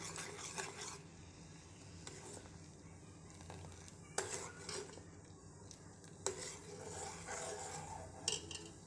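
Metal spoon stirring a hot agar-agar jelly mixture in a metal pot, scraping round the pot and knocking against it four times. The mixture is being stirred constantly as it heats toward the boil so that it does not set.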